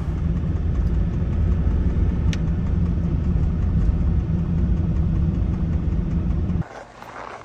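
Ford Transit van driving on a snowy road, heard from inside the cab: a steady low rumble of engine and road noise, with a single sharp click about two seconds in. The rumble cuts off suddenly near the end.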